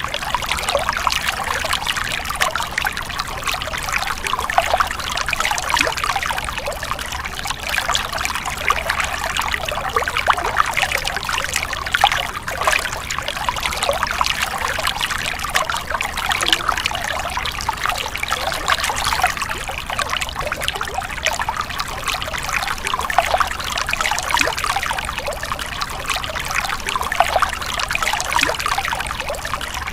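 Stream water splashing and trickling, a continuous dense babble.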